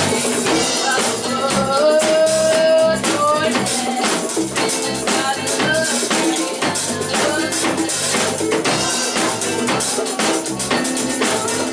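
A small live band playing: drum kit, electric guitars and keyboard. A lead melody slides up into a held note about two seconds in.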